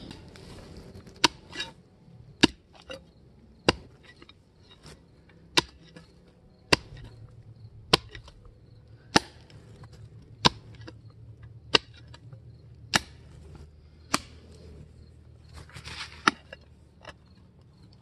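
An Ames folding military shovel chopping into heavy, rocky clay soil. The blade strikes sharply about once every 1.2 seconds, a dozen or more times.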